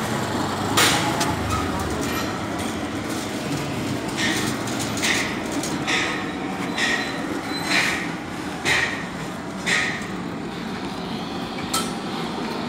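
Copper tubing being wound around a stainless-steel water tank: the tube clicks and rubs against the steel in short, sharp strokes about once a second, over a steady background noise.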